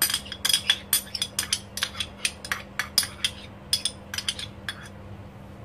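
A metal spoon clinking and scraping against a small dish as thick sauce is scooped out onto chicken in a ceramic bowl: quick sharp clinks, about four a second, stopping about five seconds in.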